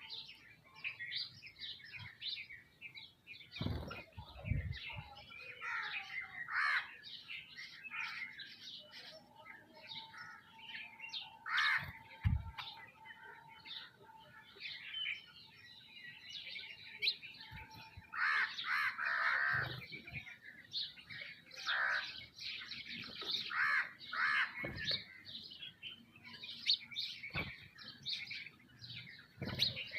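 A flock of sparrows and mynas chirping and calling busily without pause, with a few low thumps around 4 and 12 seconds in.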